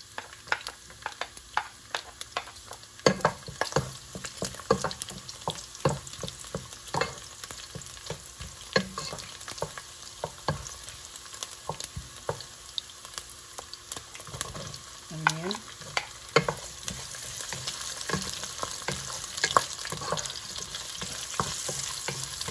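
Pork, garlic and onion frying in hot oil in a pot, sizzling, while a wooden spatula stirs them, knocking and scraping against the pot many times. The sizzle gets louder in the second half.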